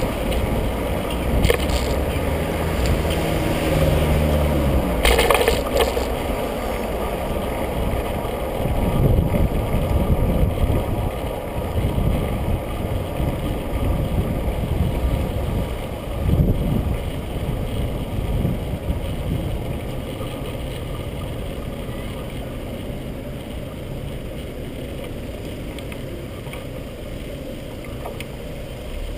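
Wind buffeting the microphone and tyre and road rumble from a bicycle riding in city traffic, with car engines running close by; a short rattle about five seconds in.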